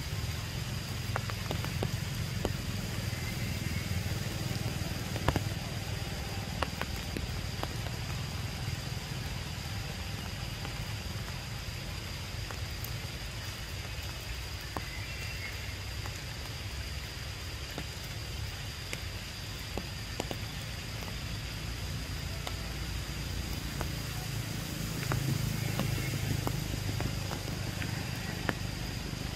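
Rain falling on forest leaves: a steady hiss with scattered drops ticking, over a steady low rumble and a thin steady high-pitched tone.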